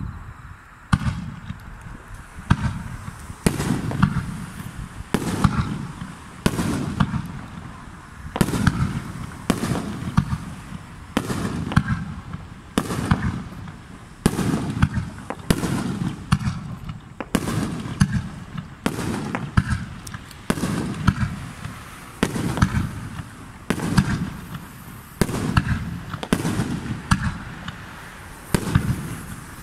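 Aerial firework shells bursting in quick succession, one sharp boom every second or two, each trailing off in a rolling echo.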